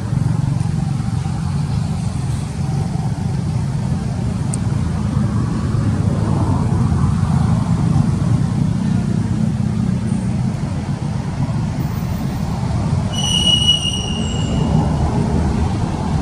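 Steady low rumble of outdoor background noise, like distant road traffic. About 13 seconds in there is a short, high whistle-like call.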